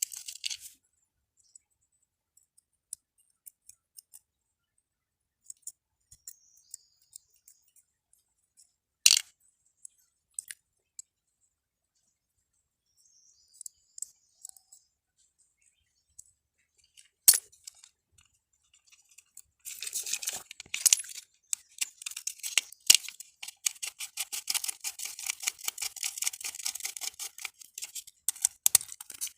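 Small clicks and taps of a disassembled miniature circuit breaker's parts being handled, with two sharp snaps. From about two-thirds in comes a long run of rapid scraping clicks.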